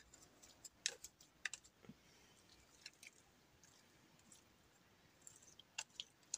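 Faint, scattered clicks and scrapes of plastic meat-shredding claws tearing apart cooked chicken in a slow-cooker crock, a few ticks at a time with near silence between.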